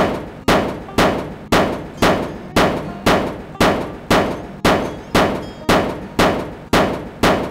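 Hammer blows on metal in a steady rhythm, about two strikes a second, each with a short ring.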